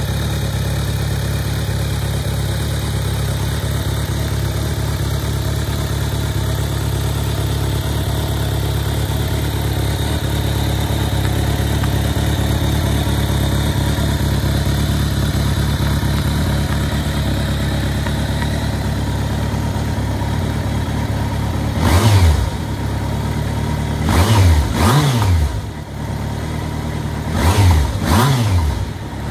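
Kawasaki ZRX1200 DAEG inline-four idling steadily through an aftermarket PMC megaphone exhaust, then blipped five times in quick succession, with the revs rising and falling, over the last seven seconds or so.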